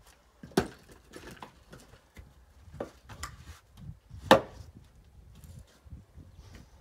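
Firewood being handled: split pieces and a log round knocking down on wood, several sharp wooden knocks, the loudest about four seconds in as a round is stood on the chopping block.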